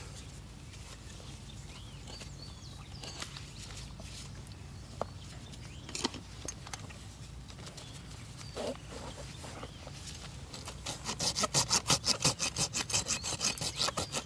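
Hoof rasp filing a draft horse's hoof wall with rhythmic scraping strokes, about three a second, starting about eleven seconds in; before that only faint background with a few light clicks. The rasp is dressing down the flared, separated outer hoof wall.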